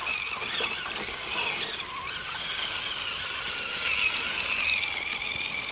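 Axial SCX10 RC scale crawler's electric motor and gearing whining at a high pitch that wavers up and down with the throttle, then holds steady near the end.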